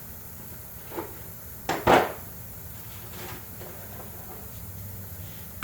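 Metal hand tools clanking: a light knock about a second in, then a loud double clank about two seconds in, and a faint knock a second later.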